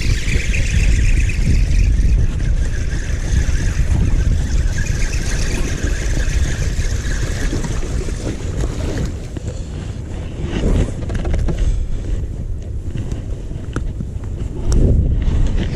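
Wind buffeting the microphone in a loud, uneven low rumble, with a steady higher hiss through the first half.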